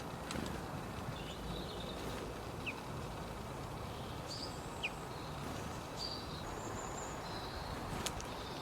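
Steady background noise with scattered short, high bird chirps and a few brief sharp clicks.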